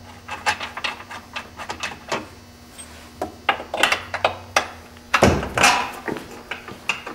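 Small metallic clicks and rattles of bolts, washers and a wrench being handled as two bolts are fitted back through a golf cart's front bumper into the frame. A louder scuffing thump comes about five seconds in.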